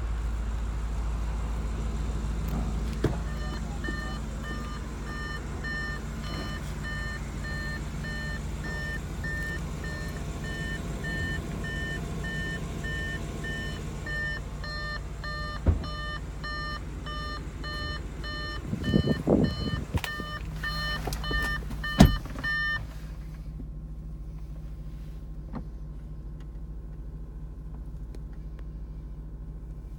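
Car warning chime beeping steadily, about two short beeps a second, over a low steady hum. A few knocks and rustles come near the middle, and just after a sharp knock the beeping stops.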